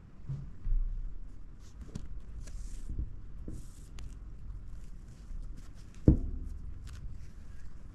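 Handling noise from hand-sewing a fabric lining with needle and thread: soft rustling of cloth and light clicks, with one dull knock about six seconds in.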